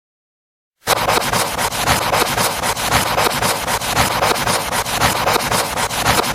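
Loud scratchy rubbing noise dense with rapid crackles, starting abruptly about a second in.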